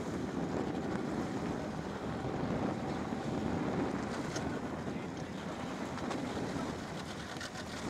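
Wind buffeting the microphone over choppy sea water, with a small boat's outboard motor running.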